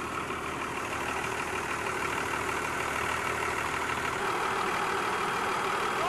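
Military cargo truck's engine idling steadily.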